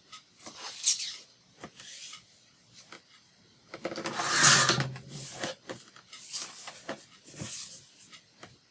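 Paper being cut and handled: a series of short, irregular rasping cuts and rustles, the longest and loudest about four seconds in.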